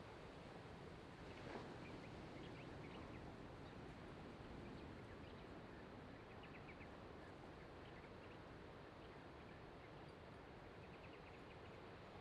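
Faint steady rush of breaking surf, with scattered small bird chirps now and then.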